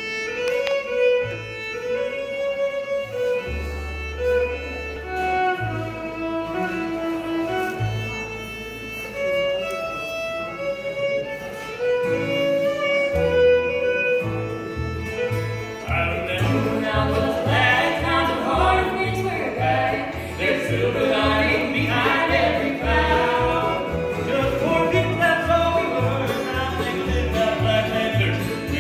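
Live bluegrass band playing: a fiddle carries the melody over long held upright-bass notes. About sixteen seconds in, the whole band comes in with a steady bass beat and denser, brighter picking from the guitars, mandolin and banjo.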